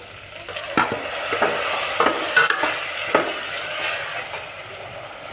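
A steel ladle stirring and scraping vegetables frying in oil in a stainless steel pot, with a sizzle under irregular metal clinks against the pot. The stirring eases off and the sound gets quieter near the end.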